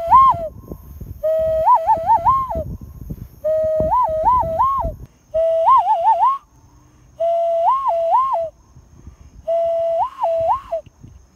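Hand whistle blown through cupped hands as a mock "fish call": about six hooting phrases, each a held note that ends in two or three quick upward swoops in pitch, with short pauses between.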